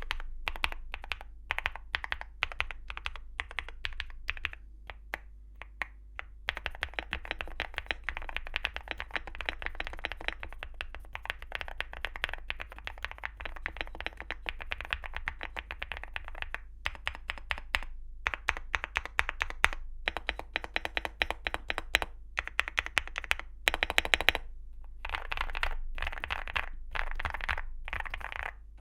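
Typing on a Weikav NUT65 65% mechanical keyboard with KeyGeek Y2 linear switches and Cherry profile dye-sub PBT keycaps, giving a thocky, marbly keystroke sound. The typing is fast and continuous for long stretches, with slower passages and some louder single strokes in between.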